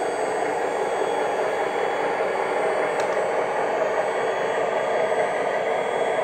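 Steady mechanical running noise from a four-axle radio-controlled tipper truck as it lowers its empty bed and pulls forward, with a single sharp click about three seconds in.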